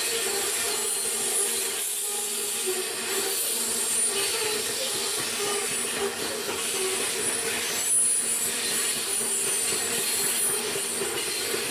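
Train of coal hopper wagons rolling past at a distance, a steady rolling noise with a high-pitched wheel squeal that comes and goes.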